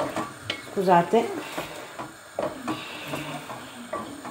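Wooden spoon stirring a meat sauce in a stainless steel pot, clacking against the pot several times.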